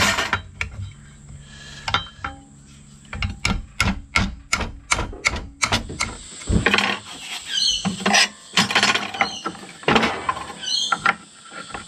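Sharp metallic clicks and knocks, several a second, then scraping and a few short squeaks, as a seized disc nut that has not been undone in a long time is worked loose and the disc changed on an angle grinder's spindle.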